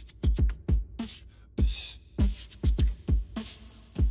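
Electronic intro music: a beat of deep kick-drum hits that drop in pitch, with short hissing hits in between.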